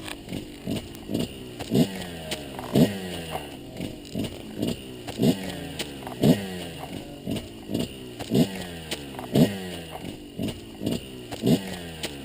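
Kawasaki KX125 two-stroke single-cylinder engine revved in quick repeated throttle blips, about two a second, its pitch dropping after each one.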